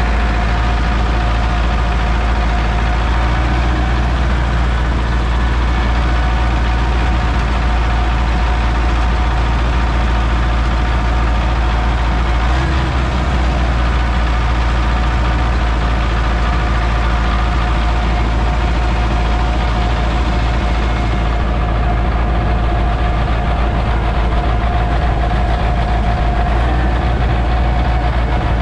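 MTZ tractor's diesel engine running steadily, heard from inside the cab: a loud, even drone with a steady whine over it.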